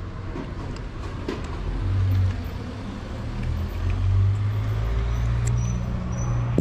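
Low steady hum of a motor vehicle engine running nearby, swelling about two seconds in and staying. Faint scattered clicks of a cat crunching dry kibble sit under it.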